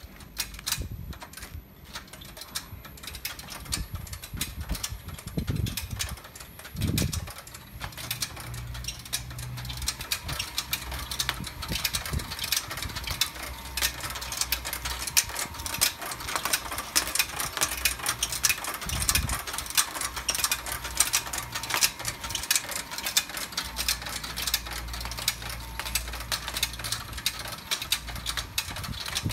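Neptunus net-mounting machine running, its mechanism clicking rapidly as it mounts netting onto a rope. A steady motor hum joins about eight seconds in.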